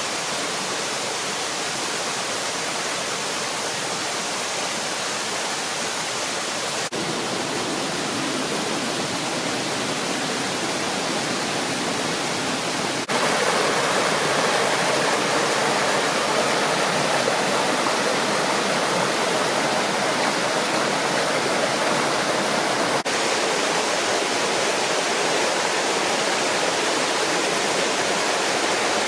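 Waterfall: a steady rush of falling, splashing water. It steps up louder about halfway through, with a couple of brief breaks where the shots change.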